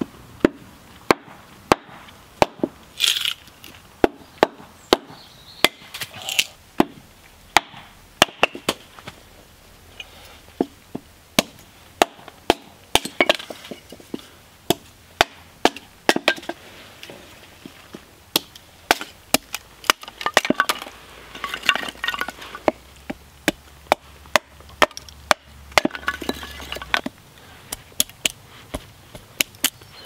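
Small hatchet splitting firewood into kindling on a log chopping block: sharp knocks of the blade biting the wood and striking the block, about one or two a second and unevenly spaced, with a crack and splintering now and then as a piece splits off.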